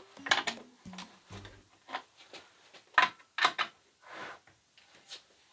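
Steel ring spanner clicking and scraping on the housing bolts of an electric pool pump as the bolts are worked loose: a string of short, sharp clicks and knocks.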